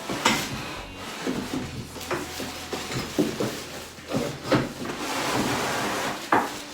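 Packaging being handled while a cardboard box is emptied: a run of knocks and clatters, with a rustling stretch about five seconds in.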